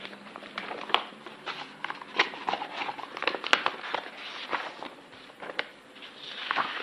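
Irregular light clicks, taps and rustles of people shifting and handling papers and small items, with footsteps as someone walks away from a podium.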